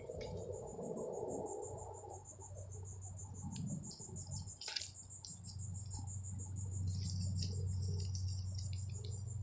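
Chorus of insects, crickets or katydids, trilling steadily in a high, finely pulsed buzz, over a low steady hum, with a few faint clicks, one sharper about halfway through.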